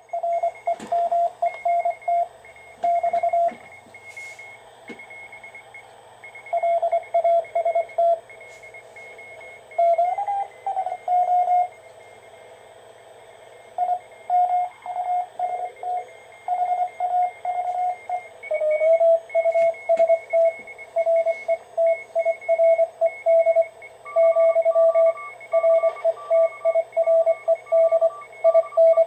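Morse code (CW) from several 40-metre amateur stations coming out of a Ten Tec 1056 direct conversion receiver's speaker, each heard as keyed beeps at its own pitch, some overlapping. Twice a tone slides in pitch as the receiver is tuned.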